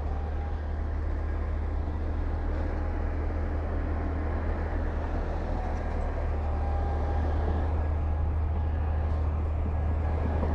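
Heavy diesel earthmoving machine running steadily with a deep rumble, growing a little louder near the end.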